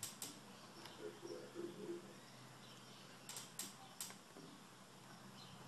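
A few faint, sharp clicks of brushwork as dry weathering pigment is flicked onto a model with a stiff-bristled brush: two at the start, then four more about three to four seconds in.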